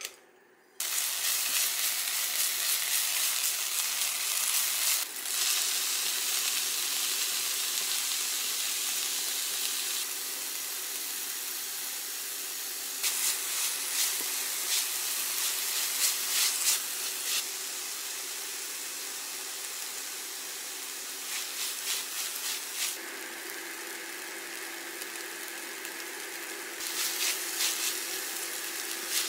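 Chopped green onions and then diced radish kimchi frying in hot oil in a frying pan: a dense sizzle that starts suddenly about a second in. Twice there are short runs of scraping and clatter as a spatula stirs the pan.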